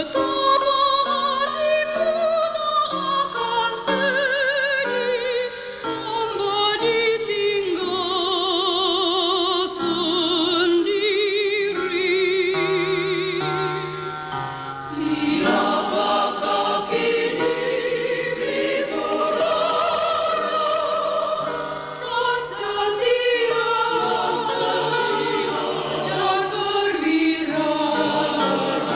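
A choir singing a slow song in long held notes with vibrato.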